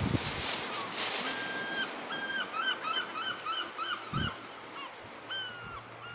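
A large bird calling repeatedly: a drawn-out call, then a quick run of about eight short calls, then another drawn-out call near the end. There is a soft low bump about four seconds in.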